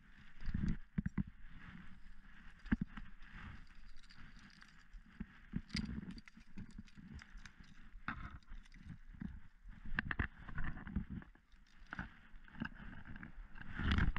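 Footsteps through grass and dirt, irregular thuds with rustling of the grass.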